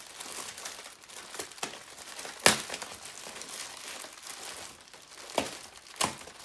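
Plastic packaging crinkling and rustling as hands pull apart a black plastic mailer bag and bubble wrap, with a few sharp crackles. The loudest crackle comes about two and a half seconds in.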